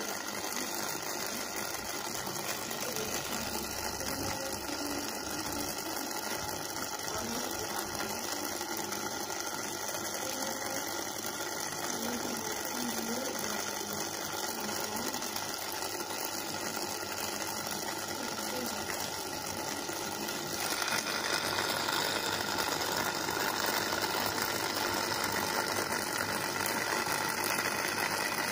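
Mini protein skimmer running on a saltwater aquarium: a steady hiss of its pump and fine air bubbles churning the water, with a faint hum, getting louder about twenty seconds in.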